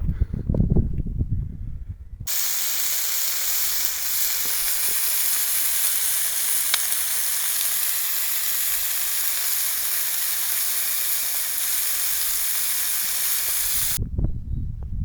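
Chicken sizzling on a hot marble stone: a steady frying hiss that starts abruptly about two seconds in and cuts off suddenly near the end. Before it comes a low rumbling noise.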